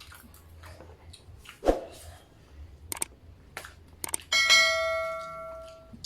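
A few clicks and knocks, then one sudden bell-like metallic ring, several pitches at once, fading away over about a second and a half.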